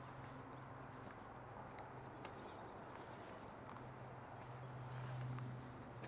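Small songbirds singing and calling: short, very high-pitched trilled phrases about every two seconds, over a faint low steady hum.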